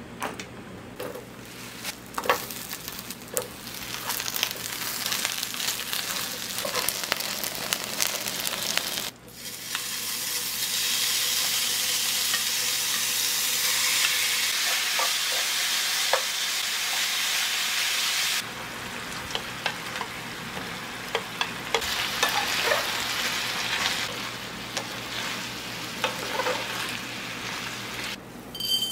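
Ground beef and eggplant sizzling in oil in a frying pan, with a wooden spatula clicking and scraping against the pan as the food is stirred. The sizzle jumps louder about a third of the way through and drops back about two thirds through.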